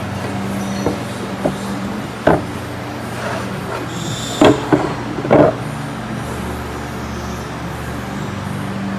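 A machine running with a steady hum, broken by a few sharp knocks, with a louder cluster of three about halfway through.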